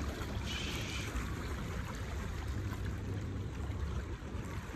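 Steady shoreline ambience: water lapping among the rocks at the water's edge, with wind rumbling on the phone's microphone. A brief hiss comes about half a second in.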